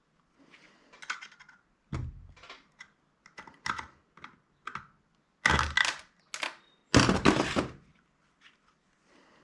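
Irregular clicks, knocks and clatter of the hard plastic casing and parts of a handheld retail scanner being handled and pried apart during disassembly, with a dull thump about two seconds in and two longer rattling clatters near the middle and later on.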